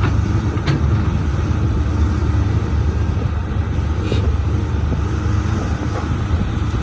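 Caterpillar 320C hydraulic excavator's diesel engine running with a steady low rumble, with two brief, faint higher knocks, about a second in and again near the middle.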